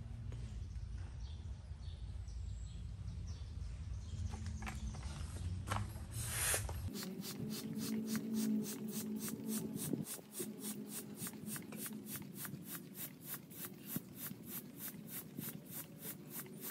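Hand stick air pump being worked quickly to inflate an above-ground pool, each stroke a short hiss of air, about four a second, from about seven seconds in. Before that a low rumble of wind on the microphone with a few small clicks.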